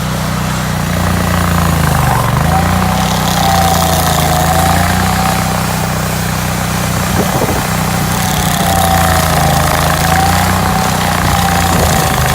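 Hydraulic stump grinder's engine running steadily under load, its pitch dipping briefly about two seconds in, with a wavering whine above the engine note.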